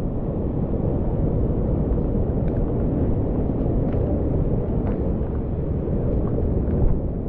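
Rain-swollen, muddy mountain torrent in flood, rushing over boulders close by: a loud, steady, deep rush of water.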